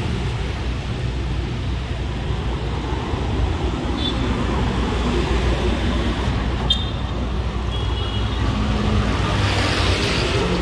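Road traffic noise with the low rumble of a passing motorcycle engine. A click and a few short high chirps come about two-thirds of the way through, and a vehicle swells louder near the end.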